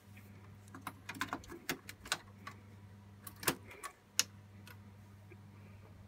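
Light clicks and knocks of a video card being fitted back into the expansion slot and retention bracket of an HP Z620 workstation's metal chassis, the loudest two knocks near the middle; after that only a low steady hum remains.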